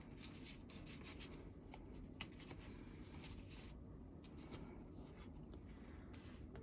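Fingertips rubbing on photocards in a binder's clear plastic sleeve pages: faint scratchy rustling with a few small clicks.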